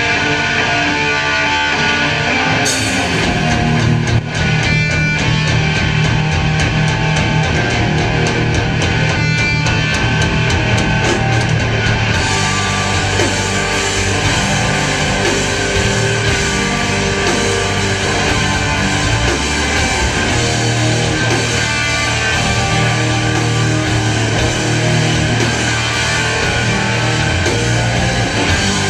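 Heavy metal band playing live, loud and guitar-driven, with distorted electric guitars over bass and drums. The sound grows fuller about three seconds in.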